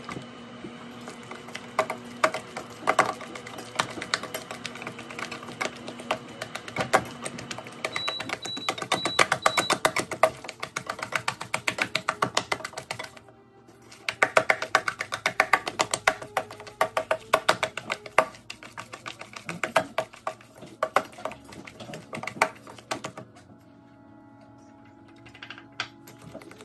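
Quick runs of wet slapping and clicking as sticky sourdough dough is scooped and worked by hand against a stainless steel bowl, Rubaud mixing, with a short pause about halfway and quieter handling near the end. Soft background music plays underneath.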